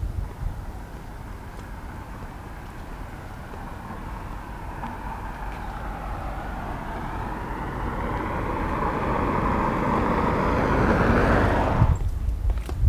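A motor vehicle's engine growing louder and rising in pitch over several seconds, over a steady low rumble, then cutting off suddenly near the end.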